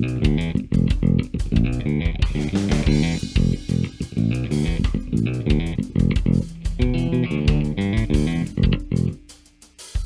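Gretsch G2220 Junior Jet II short-scale electric bass played fingerstyle through its single-coil bridge pickup alone, tone control fully open, a busy bass line over drums. The line stops about nine seconds in, and the next passage begins right at the end.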